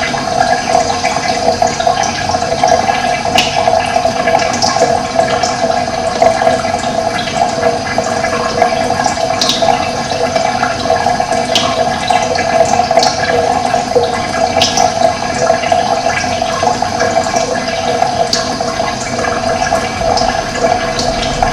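Running water rushing steadily, with short high bird chirps now and then.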